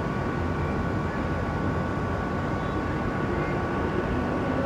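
Steady low rumble of outdoor background noise, with two faint steady high-pitched tones running through it.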